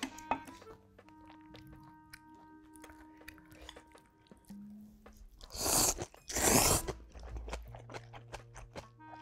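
Close-miked chewing with small crunchy clicks, then two loud slurps of ramyun noodles, about six seconds in and half a second apart.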